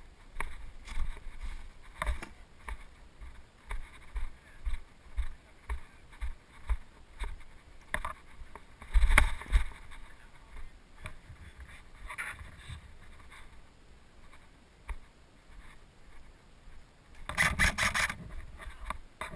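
Footsteps and rustling through dry undergrowth, an irregular run of crunches and scrapes, with a louder brush-through about nine seconds in and a quick run of rapid clicks near the end.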